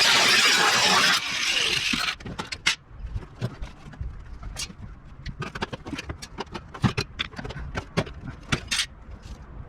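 A power tool runs for about two seconds and cuts off, followed by a string of scattered metal clanks and knocks as parts of the washing machine's drum are worked loose.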